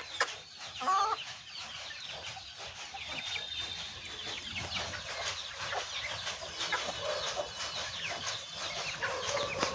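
Aseel chickens clucking, with a louder call about a second in and a steady chatter of short, high chirps throughout.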